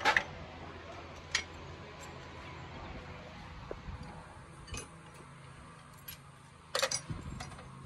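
Hand tools and small metal parts clinking against a Suzuki Cultus engine's opened cylinder head and valve gear during its strip-down: a few scattered sharp clinks, one about a second and a half in and a louder cluster near the end.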